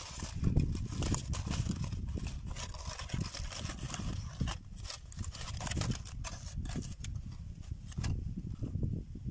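Aluminium foil crinkling and crackling as hands peel it open from a grilled fish, in irregular clicks over a steady low rumble.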